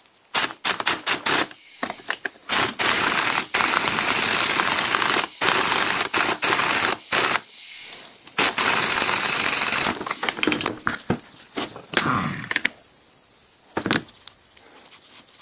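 Power tool run in repeated bursts: several short ones at first, then a few lasting a couple of seconds each, thinning to short bursts near the end.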